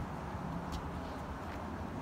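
Steady low outdoor background rumble, with a faint click about halfway through.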